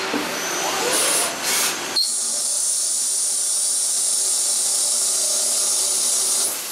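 CNC turning center U-drilling a spinning stainless-steel bar with an 18 mm insert drill under flood coolant. The first couple of seconds are uneven splashing and machine noise. Then a steady high-pitched whine over a hiss sets in abruptly as the drill cuts, and it stops just before the end.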